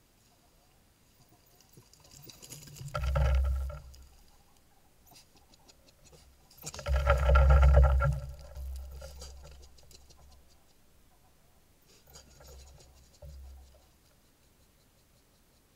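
Scraping, rubbing and bumping on a trail camera's housing in three bouts with a heavy rumble, the loudest about seven to nine seconds in, as something jostles the camera.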